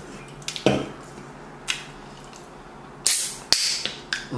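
A few brief rustling noises and one sharp click, with quiet room tone in between.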